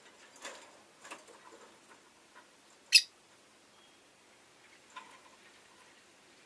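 Rosy-faced lovebird giving a few short, sharp, high chirps, the loudest about three seconds in.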